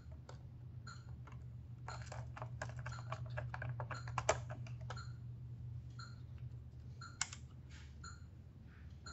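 Small plastic and metal clicks and taps as parts are handled inside a syringe pump's open plastic housing. There is a dense run of clicks in the middle, the sharpest just after four seconds and another about seven seconds in, over a steady low hum.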